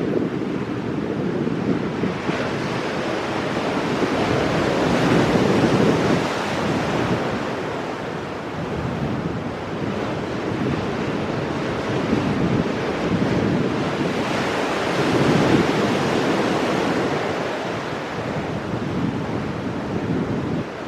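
Ocean waves breaking and washing over rocks, swelling to louder crashes twice, about five and fifteen seconds in. Wind rumbles on the microphone throughout.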